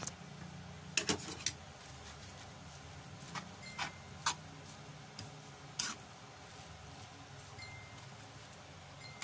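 Metal spatula clinking and scraping against the pan while tossing noodles and chopped vegetables, a few sharp irregular clinks about a second apart, over a steady low hum.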